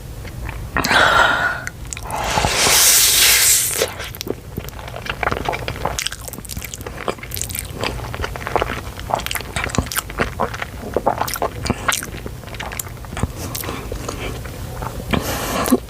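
Close-miked eating of cheesy Buldak ramen noodles: a loud slurp about two seconds in, then steady chewing with many small wet mouth clicks.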